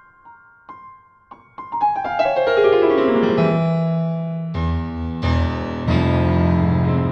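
Keyboard music, piano-like keys. It opens with sparse single notes, then from about two seconds in a quick run of notes steps downward. A deep bass comes in about four and a half seconds in.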